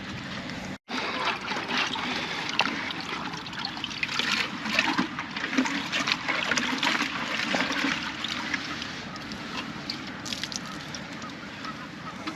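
Water trickling and splashing, with many small crackling clicks that are busiest in the middle and ease off toward the end.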